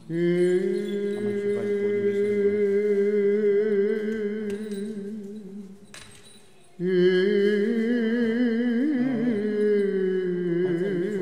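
Byzantine chant: a voice singing long, drawn-out notes with a wavering pitch, in two phrases. The first fades out around six seconds in and the second starts about a second later.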